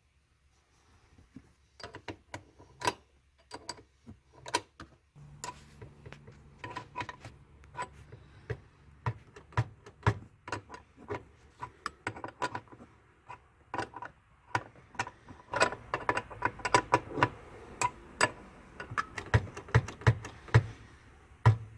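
Ratchet wrench clicking in short runs with metal clinks of socket and wrench, as a 13 mm nut on the e-brake cable adjuster is tightened. The clicks are sparse at first and come thicker and faster from about five seconds in.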